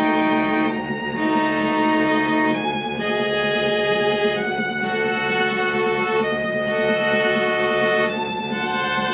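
String quartet playing loudly: the cello drives a fast, steady run of accented repeated low notes while the two violins and the viola hold long sustained notes above, changing pitch every second or two.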